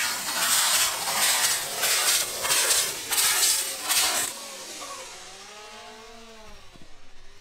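Hissing of three Estes E16 rocket motors driving a giant spinning helicopter firework as it lifts off, the hiss pulsing about twice a second. The builder believes only one or two motors gave thrust, through a motor case failure. About four seconds in the hiss dies away and faint wavering tones follow.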